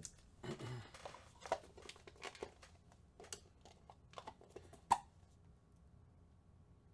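Plastic card packaging crinkling as trading cards are handled, with scattered small clicks and one sharp click about five seconds in, after which it goes quiet.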